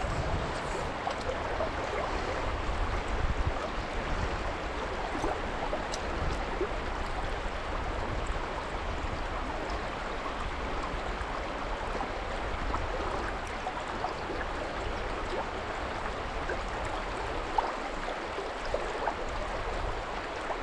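River water rushing steadily over the streambed, an even continuous hiss, with a few faint clicks here and there.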